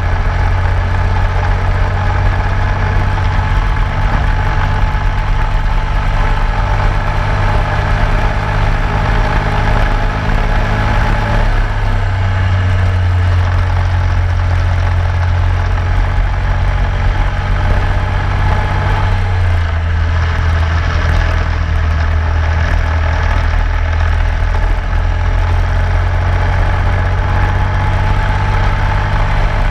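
Racing kart engine running hard around a road course, a steady loud drone with wind and tyre rush over it; its pitch steps up about twelve seconds in and drops again a few seconds past halfway.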